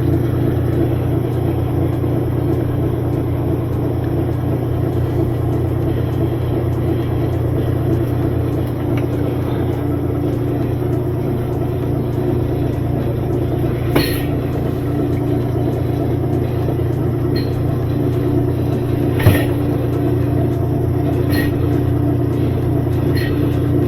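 Whirlpool direct-drive top-load washer running with a steady motor hum, a few light knocks sounding from it now and then. The machine is being run as a test on a washer that won't spin.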